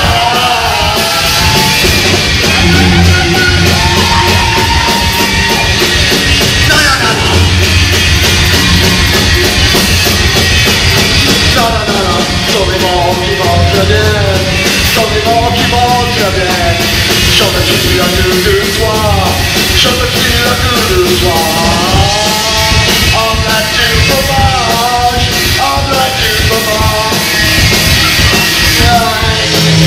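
Live rock band playing loud, with dense drumming throughout and a wavering, bending lead line riding over it.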